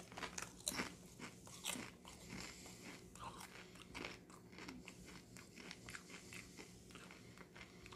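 A person chewing a mouthful of Doritos tortilla chips with the mouth closed: a faint, irregular run of small crunches.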